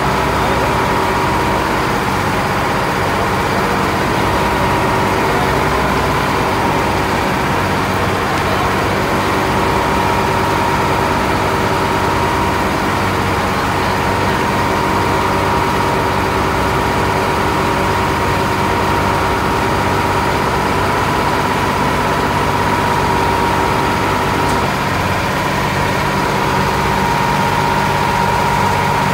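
Steady drone of a river launch's diesel engine, with hot oil sizzling as fish fries in a wok.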